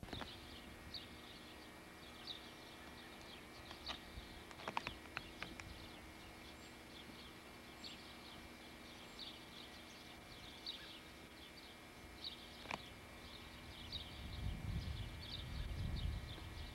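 Outdoor ambience of short, high chirps repeating irregularly all through, from small creatures such as birds or insects, over a faint steady hum. A few sharp clicks come about four to five seconds in, and a low rumble of camera handling builds near the end as the camera swings.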